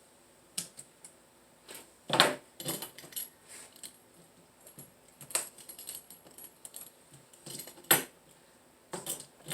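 Irregular light clicks and clinks of hand tools and a window screen frame being handled while the rubber spline is cut and fitted, with two sharper knocks about two seconds in and near the end.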